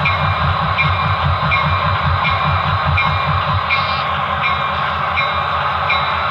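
HO-scale model train running, its sound-equipped locomotive giving a fast low pulsing with a regular click about every three-quarters of a second.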